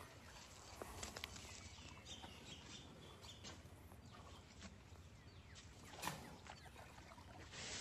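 Faint scattered rustles and crunches of dry leaves as baby elephants shuffle on a leaf-strewn platform, with one sharper click about six seconds in, over quiet outdoor ambience.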